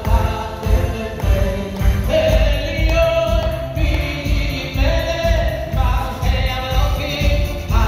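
A male singer holding long sung notes into a microphone over amplified backing music with a steady beat of about two beats a second, carried by a hall's loudspeakers.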